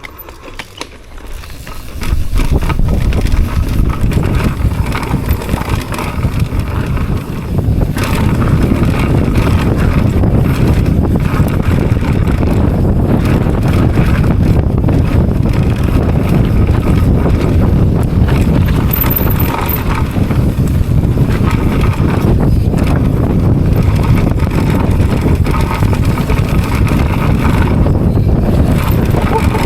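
Wind rushing over the microphone with rattling and rumble from a bike riding fast down a rough trail, rising sharply about two seconds in as it gets moving.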